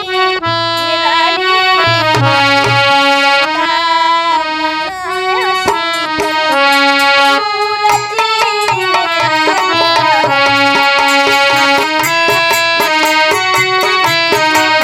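Instrumental Indian folk music led by a harmonium playing a held, stepwise melody, with low drum strokes coming in at times.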